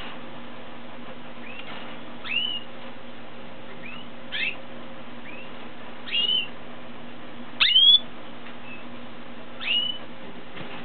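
Male Raza Española canary giving single short call chirps, each a quick rise and fall in pitch, repeated about every one to two seconds.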